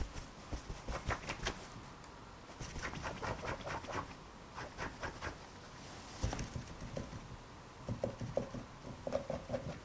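A dog moving about, making irregular clusters of light taps and rustles, with a few short squeaky sounds near the end.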